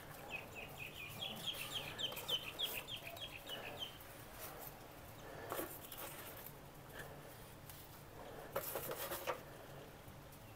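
A bird calling a rapid run of short, high chirps, about four a second for some four seconds, then falling quiet. A few faint knocks and clatters follow later.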